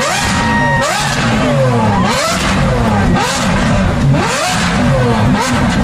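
Lamborghini Aventador SVJ's naturally aspirated V12 being revved while standing, the throttle blipped about once a second so the engine note rises sharply and falls back each time.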